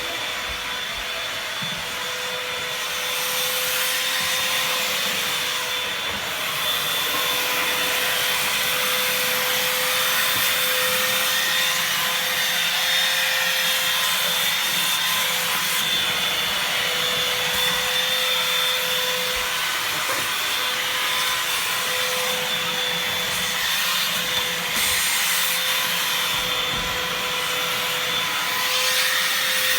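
Bosch GAS 18V-1 18-volt cordless handheld vacuum cleaner running steadily: a high motor whine over the rush of air through the nozzle.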